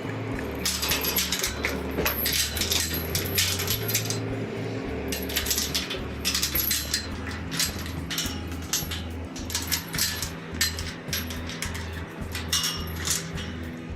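Background music with a steady bass line stepping from note to note. Over it, from about a second in, come irregular clattering and rattling noises.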